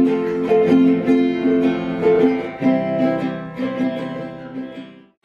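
Acoustic guitar and ukulele strummed together, playing chords at an even pace. The strumming thins out and fades near the end.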